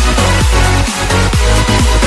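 Electronic dance music with a steady, heavy kick-drum beat; the bass drops out briefly about a second in.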